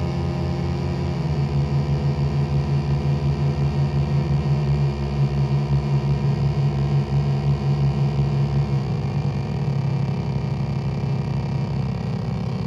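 Low, buzzy electronic drone from a home-built triple avalanche-transistor oscillator board (S9018 transistors), wavering in level and shifting in pitch as its knobs are turned: the tones change about a second in, again around nine seconds in, and near the end.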